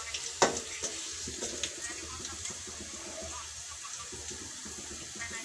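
Sliced onions and bay leaves sizzling in hot oil in a steel kadai, with a metal spatula knocking against the pan about half a second in and a few lighter scrapes after.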